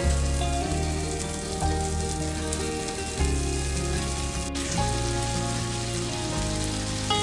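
Shrimp sizzling in oil in a frying pan, a steady fine crackle, under background music of sustained notes over a bass line that changes every second or so.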